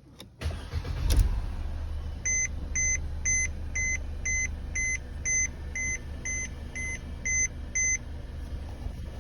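Mercedes M271 inline-four engine starting and settling into a steady idle after a timing chain replacement. Over it, an electronic warning chime beeps about a dozen times, roughly two a second.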